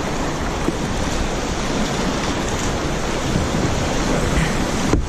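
Rushing whitewater of river rapids churning around a kayak: a steady, unbroken rush of water.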